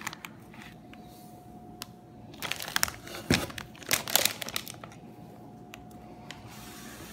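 Thin plastic produce bags and wrap crinkling in two short bouts as produce is handled, with a soft knock between them.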